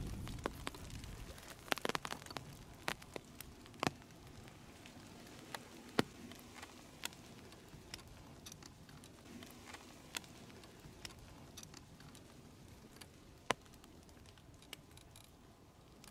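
Footsteps on a dry trail: irregular crackles and ticks, thickest about two to four seconds in, then scattered single ticks over a low hiss.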